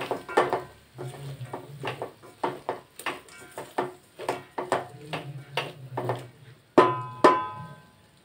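A spoon stirring prawns in a metal pot, knocking and scraping against the pot in a quick irregular run of clatters. Near the end come two louder ringing clanks as the spoon is struck on the pot.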